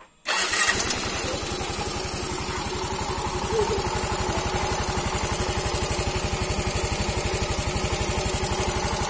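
A Yamaha Mio M3 125 scooter's single-cylinder four-stroke engine comes in suddenly just after the start and then idles steadily with an even, fast pulse. The engine has just been rebuilt with a new cylinder block and piston and has its exhaust fitted.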